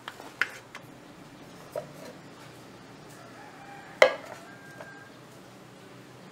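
A few light clicks and rustles of hands handling a coffee bag, then about four seconds in a single sharp metallic clink with a short ring as a hand knocks against a metal kettle.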